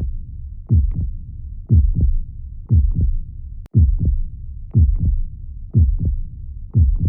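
Heartbeat sounds: a steady double lub-dub thump about once a second over a low rumble. There is a brief click and dropout about three and a half seconds in.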